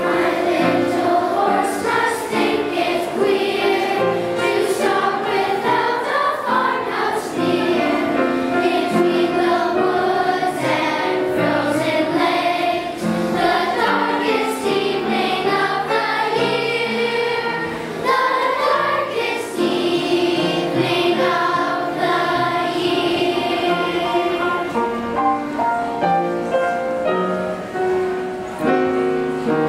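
A large children's choir singing a song together.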